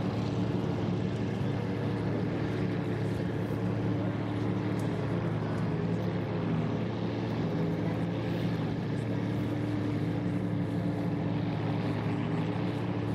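Class 1 offshore racing powerboats running at speed, their engines making a steady, even drone.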